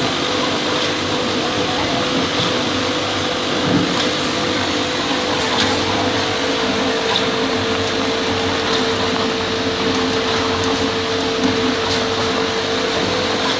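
Automatic liquid packaging machine running: a steady mechanical hum with a constant whine, and a light click about every one and a half seconds as it cycles.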